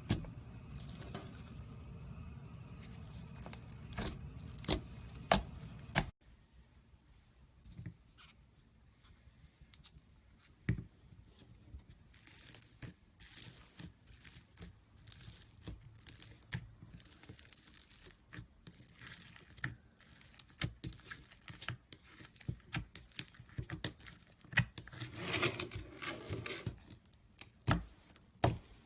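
Slime being squeezed and stretched by hand: sticky crackling, small pops and tearing sounds, with an abrupt change to a quieter clip about six seconds in.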